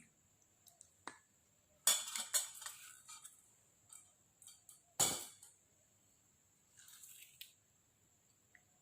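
Kitchenware being handled, a glass and a metal strainer among it: scattered clinks and knocks, the sharpest about two seconds and five seconds in.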